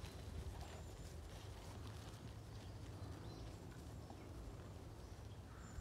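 Faint hoofbeats of a cob horse walking on grass.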